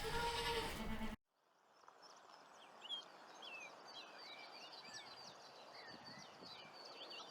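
A goat bleating, cut off abruptly about a second in. After the cut come many faint, quick chirps of small birds over a light hiss.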